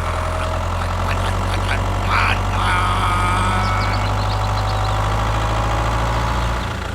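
Tractor engine running at a steady low drone, with fainter higher whines over it; the drone cuts off suddenly near the end.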